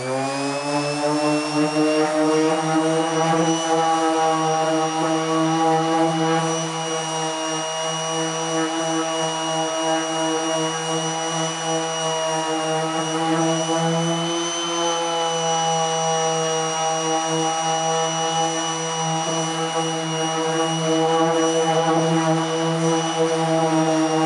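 Corded electric random orbital sander sanding Bondo body filler on a car hood. Its motor finishes spinning up in the first second, then runs with a steady whine whose pitch dips slightly a couple of times.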